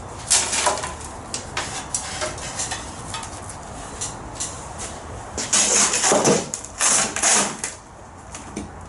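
Loose dirt scraping and pouring in short rough bursts, a brief one just after the start and a longer, louder run about two-thirds of the way through.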